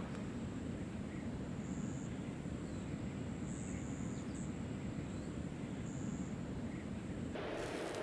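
Outdoor ambience: a steady high-pitched insect trill, swelling a few times, over a low wind rumble, with a few faint bird chirps. Near the end the background switches abruptly to a broader hiss.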